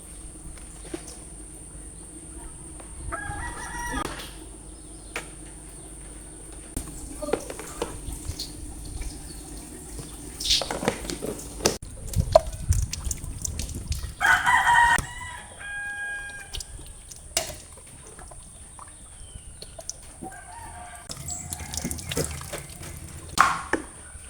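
A rooster crowing twice, about three seconds in and again near the middle, over scattered knocks, clatter and water sounds.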